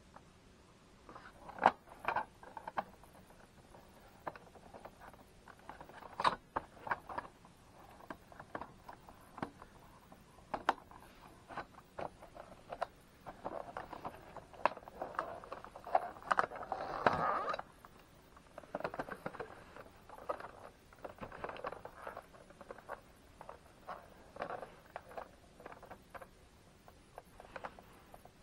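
Plastic parts of a Shark Navigator vacuum's floor head being handled and fitted together by hand: scattered clicks, taps and knocks with short spells of rubbing and scraping, busiest in a stretch of scraping and rattling around the middle.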